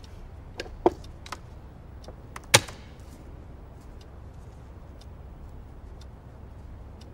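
Sharp clicks of chess play: pieces set down on a wooden board and a chess clock being pressed. A handful of clicks come in quick succession, the loudest about two and a half seconds in, over a low steady hum.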